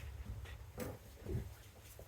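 A few faint clicks and knocks, about four over two seconds, over a low steady hum.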